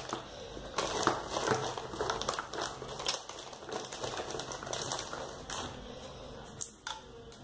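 Whole spices, cinnamon among them, crackling and sizzling in a little hot oil in a frying pan, with many irregular sharp pops.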